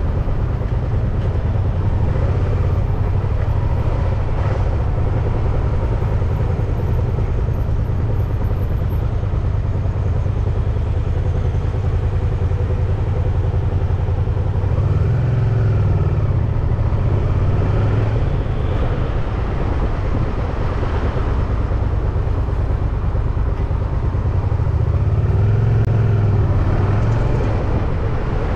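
Steady wind rumble on the microphone of a moving bicycle, over road traffic. A motor vehicle's engine rises and falls in pitch as it passes about halfway through, and another passes near the end.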